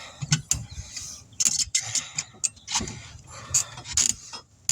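Irregular knocks, clicks and scrapes of tire-changing work: a 20-inch tire being worked onto or off its rim by hand with metal tools.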